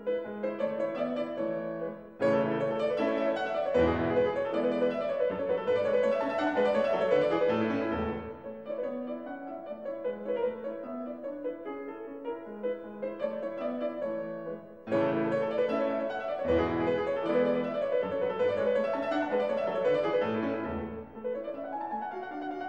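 Background piano music, growing fuller and louder about two seconds in and again about fifteen seconds in, softer in between.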